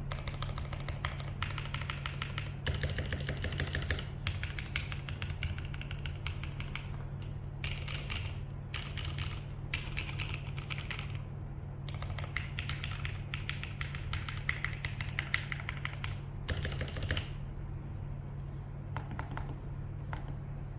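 Typing on an LCK75 mechanical keyboard with Shenpo keycaps and JWICK T1 switches: fast runs of keystrokes in bursts of a second or two, with short pauses between. A steady low hum sits under the typing.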